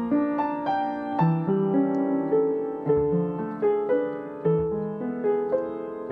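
Background music: a slow, gentle piece played on piano, one struck note after another.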